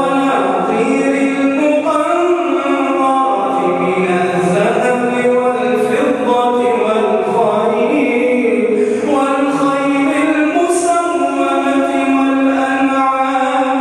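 A man reciting the Quran in a melodic chant, with long held notes that glide up and down in pitch.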